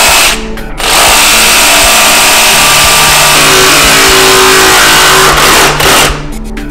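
Ryobi cordless jigsaw cutting through a laminate flooring plank, its blade running loud and steady. The saw's noise drops briefly twice, once about half a second in and again near the end.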